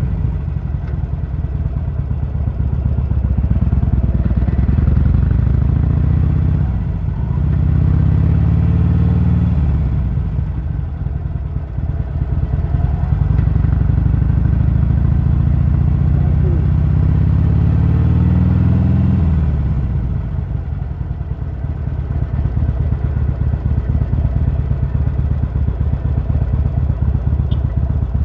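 Harley-Davidson Sportster's air-cooled V-twin engine under way. Its revs climb, drop sharply at a gear change about seven seconds in, then climb slowly for some ten seconds. Near twenty seconds the revs fall off to a low, choppy beat.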